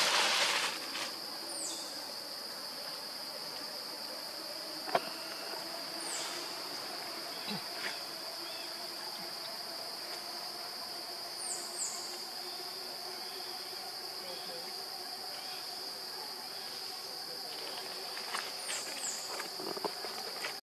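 Steady high-pitched drone of insects, with a few short high chirps over it. A brief loud burst of noise at the very start and a single sharp click about five seconds in.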